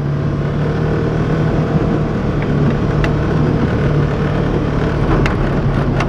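Polaris Ranger 900 utility vehicle's engine running steadily as it drives across snow, an even hum with no change in pitch.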